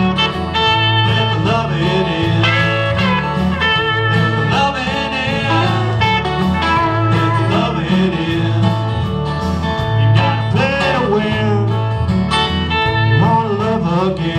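Live country-rock band playing: strummed acoustic guitars, electric guitar, bass guitar and drums, with a steady, even bass pulse.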